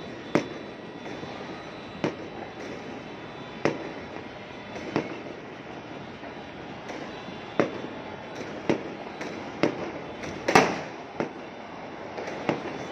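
New Year fireworks and firecrackers going off across a city: sharp bangs at irregular intervals over a constant din of distant popping, with the loudest bang about ten seconds in.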